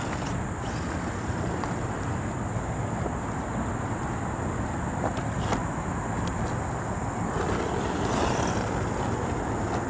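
Hosim RC truck's electric drive and tyres running over rocky ground, a steady noise with a few faint knocks.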